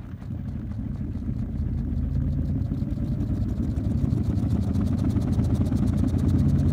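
SRT stochastic resonance therapy vibration platform running at its highest trim setting with the noise setting off, so only the baseline vibration of its two separately moving foot plates is heard. It is a low, fast mechanical hum that builds steadily louder over the first few seconds as the plates get up to speed, then holds.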